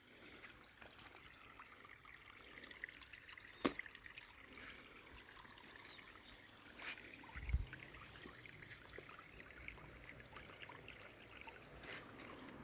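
Faint trickling water, with a few sharp clicks and one low thump about seven and a half seconds in.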